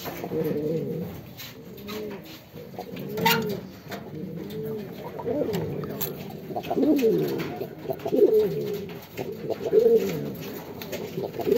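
Several pigeons cooing at once, overlapping rising-and-falling coos that keep going, the typical courting coo of male pigeons in a loft. One sharp click cuts through about three seconds in.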